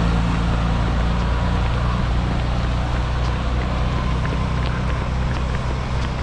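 Semi-truck engine running as the truck pulls ahead, a steady low drone that eases off slightly in the first couple of seconds. Faint running footsteps tap along in the second half.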